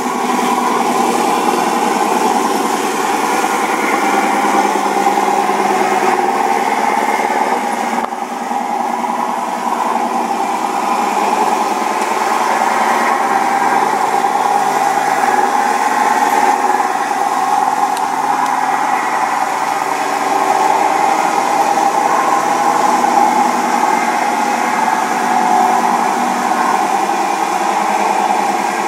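Radio-controlled scale model Scania truck driving, a steady engine-like drone that has no deep bass.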